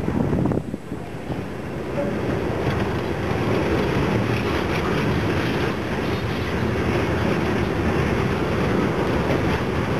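Covered steel-coil freight cars rolling past close by: a steady rumble of steel wheels on rail with faint clacks, and wind on the microphone.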